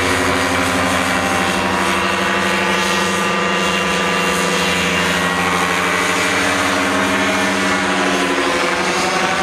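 Engine and pusher propeller of an ultralight motorized hang-glider trike flying overhead, a steady drone whose pitch slides slightly near the end.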